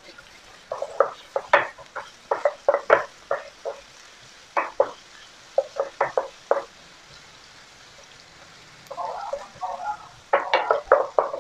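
Wooden spatula stirring and scraping minced garlic and shredded ginger around a nonstick wok in hot oil, in quick strokes of two or three a second, over a faint sizzle: the aromatics being fried until fragrant. The strokes stop for a couple of seconds after about seven seconds, then start again near the end.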